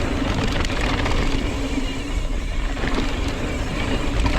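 Mountain bike descending a trail at speed: wind on the microphone, tyre noise and the bike rattling over rough ground.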